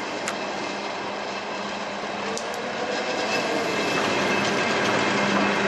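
Chichibu Railway Deki 100-class electric locomotive hauling a train of Woki 100 ore hopper wagons approaching, the rumble of its wheels on the rails growing steadily louder over a steady hum. Two brief high squeaks come through, about a quarter second and two and a half seconds in.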